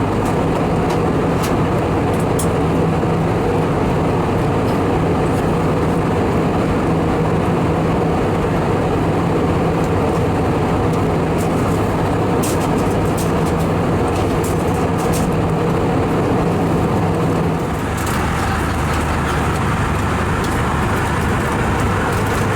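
Steady drone of an Airbus A320 in operation, as heard from the cabin: a constant wash of engine and airflow noise with a low hum under it. About eighteen seconds in, the hum changes and the noise shifts to a different tone.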